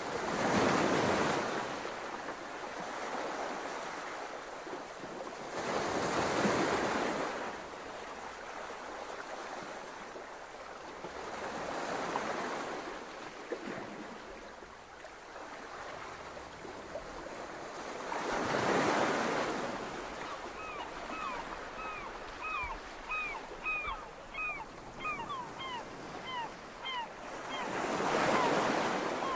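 Ocean surf: waves breaking and washing back in slow swells about every six seconds. A run of short, quick chirps, a couple a second, sounds over the last third.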